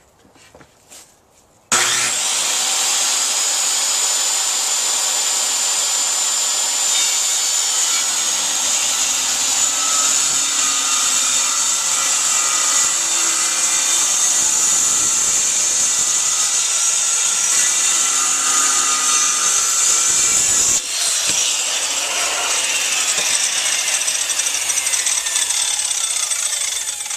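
Corded circular saw starting up about two seconds in and cutting steadily through a plywood board, a loud, even whine. About twenty seconds in the cut ends and the falling whine of the motor winding down follows.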